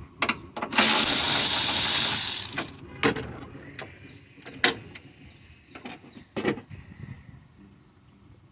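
Ratchet wrench clicking as a 10 mm bolt is backed out. A fast run of ratcheting about a second in lasts about two seconds, followed by scattered single clicks and knocks that grow fainter toward the end.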